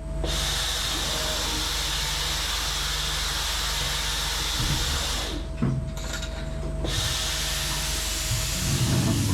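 Mazak Variaxis i-800 machining center's automatic pallet changer cycling: a steady air hiss that breaks off for about a second and a half, with a single clunk in the gap, then hisses again. A low machine hum runs underneath, with a rumble building near the end.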